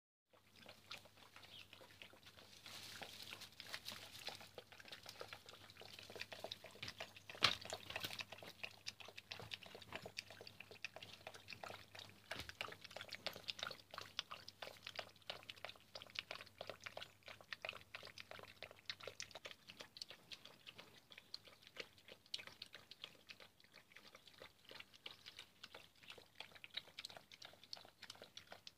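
Two puppies eating from a dish: a steady run of many small quick chewing clicks, with one sharper knock about seven and a half seconds in.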